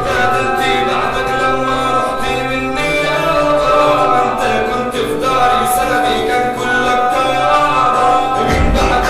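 Egyptian popular song: a man singing over instrumental backing at a steady level. Deep bass comes in about half a second before the end.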